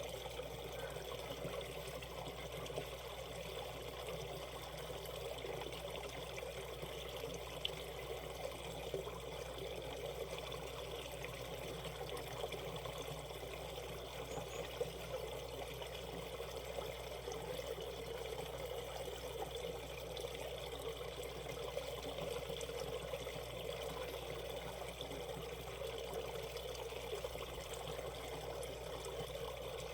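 Stream water running steadily over a shallow, rocky riffle, with a continuous trickling and babbling.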